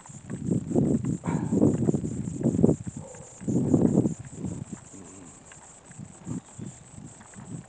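Low rumbles and knocks from the camera being carried through long grass, loudest in the first four seconds, over a steady, fast, high-pitched pulsing chirr.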